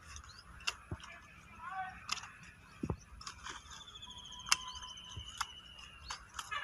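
Hand pruning shears snipping the branches of a young guava plant: several sharp, irregularly spaced clicks, the loudest about four and a half seconds in. A bird calls in the background with a long trilled note in the second half.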